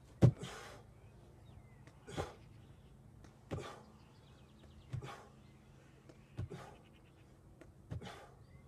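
A man's hard, sharp exhales, six of them about a second and a half apart, each with a low thud, as he works through rapid floor exercise reps, going down to the ground and back up. The first thud and exhale, just after the start, is the loudest.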